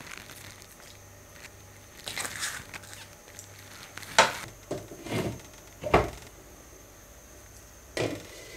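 Glass lid being set on a stone-coated cooking pot and shifted into place, knocking sharply against the rim several times in the second half.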